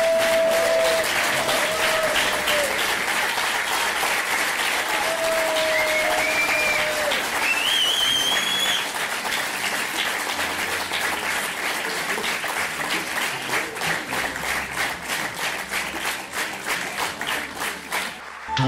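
Theatre audience applauding, with a few cries from the crowd over the clapping in the first half. In the second half the clapping falls into a steady rhythm in unison, then dies away just before the end.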